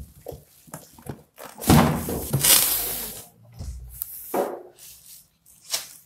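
Plastic wrapping crinkling and cardboard scraping as a bagged microwave oven is handled in its carton, loudest in a long rustle in the middle, with a dull thud about three and a half seconds in.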